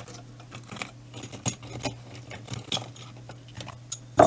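Metal fishing spoons with their split rings and hooks clinking and jingling as they are handled: a scatter of light metallic clicks, with a louder cluster near the end.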